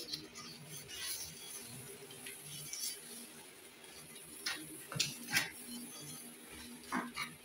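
Short clicks and light taps of a kitchen knife against a plastic cutting board and prawn shells as prawns are cut and cleaned, with a few sharper taps in quick succession about five seconds in and again near the end.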